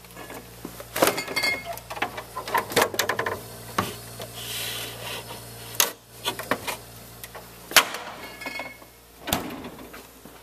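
A small refrigerator's freezer compartment being opened, rummaged in and shut: a string of clicks, knocks and rattles with a brief rustling hiss in the middle, over a steady low hum. The sharpest knock comes a little after the middle.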